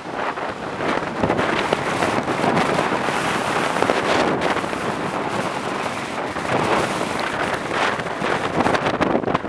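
Strong wind buffeting the camera microphone in uneven gusts, over the rush of heavy breaking surf.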